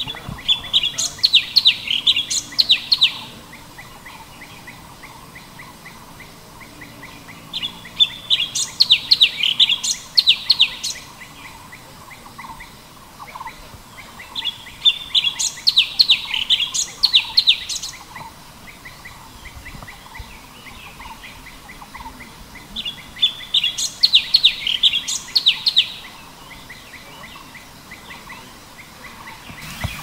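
Cucak cungkok songbird singing: four bursts of rapid high notes, each two to three seconds long and about seven seconds apart, with faint background sound in between.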